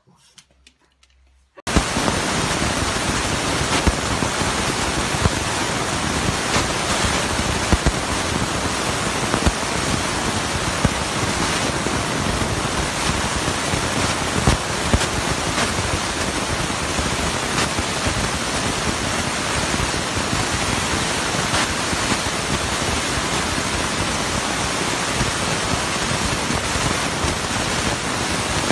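A steady, loud hiss, an even rushing noise with no tone in it, that starts abruptly about two seconds in.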